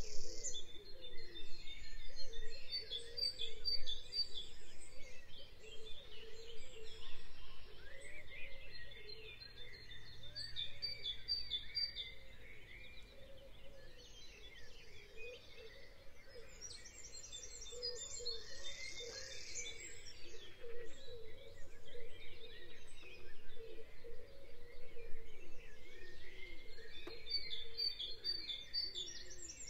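Several birds chirping and singing at once, with bursts of fast, high trills coming back every eight seconds or so.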